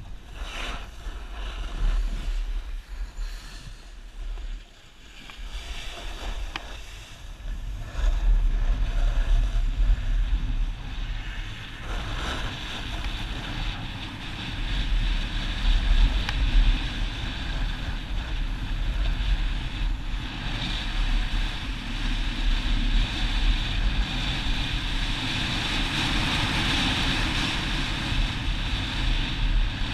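Wind buffeting a head-mounted camera's microphone while a snowboard slides and scrapes over packed, groomed snow. It is quieter for the first few seconds, then louder and steadier from about eight seconds in as the ride picks up.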